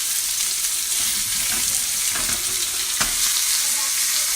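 Seasoned chicken and steak sizzling in a hot frying pan, a steady hiss with a few sharp knocks at about one and a half, two and three seconds in.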